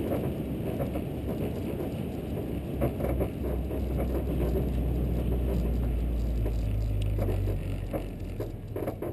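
Car engine running with road and rattle noise, a steady low drone that grows stronger about two-thirds of the way in, then eases off near the end.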